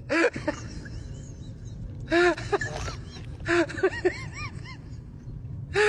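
An animal giving a series of short pitched calls, each rising and falling, with three loud calls about a second and a half apart and smaller chirps between them.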